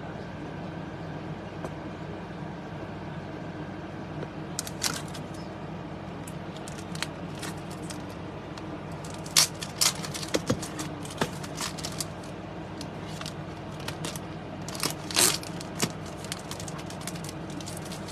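Scattered clicks, crackles and scrapes of small objects being handled, coming in a few clusters over a steady low hum.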